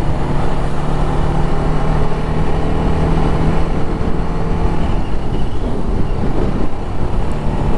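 Motorcycle engine running at a steady speed under road and wind noise, its pitch changing and wavering from about five seconds in.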